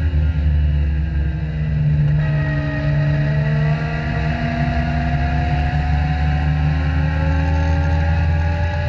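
Legend race car's Yamaha four-cylinder motorcycle engine at racing speed, heard from inside the cockpit. Its note sags slightly at first, then from about two seconds in rises steadily as the car accelerates.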